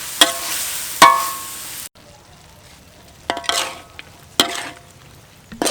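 A stir-fry sizzling in a hot pan while a utensil stirs it, striking the pan twice with a ringing clank. The sizzle cuts off abruptly about two seconds in, leaving a few quieter clinks that ring briefly.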